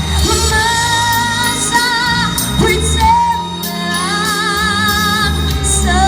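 A woman singing a pop ballad, holding a few long notes with vibrato over instrumental accompaniment.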